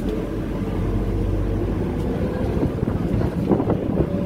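Steady low rumble of a moving tour vehicle heard from inside, with some wind on the microphone.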